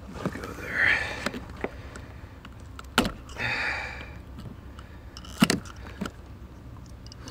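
Tin snips cutting through the excess end of a metal-cored rubber door weatherstrip: crunching squeezes of the blades and two sharp snaps, about three seconds in and again about five and a half seconds in.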